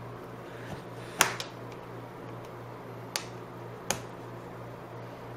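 Plastic snap clips of a laptop's case popping loose as a plastic card pries the top cover away from the bottom: three sharp clicks, the loudest about a second in.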